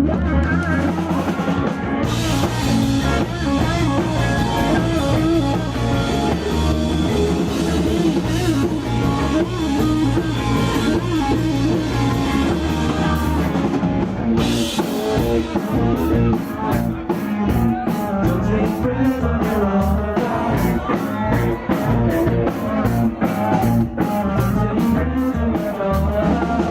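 Live rock band playing: electric guitar and drum kit, with some singing. About halfway through there is a cymbal-like crash, and after it the drums hit fast and evenly, about four strokes a second.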